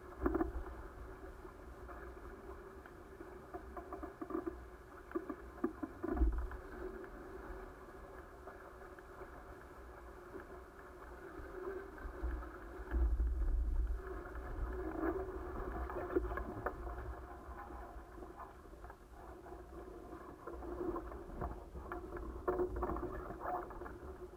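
An A-Class catamaran's hulls rushing and slapping through the water under sail, with gusts of wind buffeting the microphone. The sound is muffled, with uneven swells and a few knocks.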